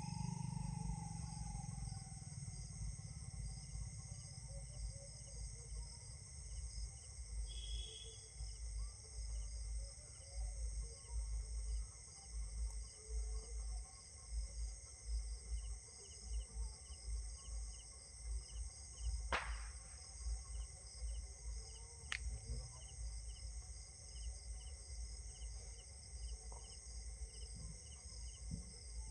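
Steady high insect drone with a cricket-like chirp repeating in short pulses, over an uneven low rumble. Two sharp clicks stand out about two-thirds of the way through.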